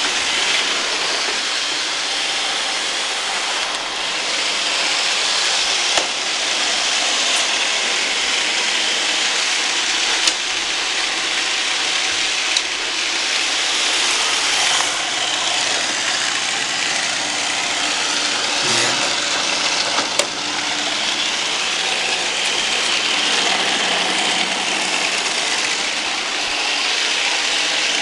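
Roomba robot vacuums running: a steady whirring hiss of their motors and brushes, with a few sharp clicks and a low knock, typical of the robots bumping into things.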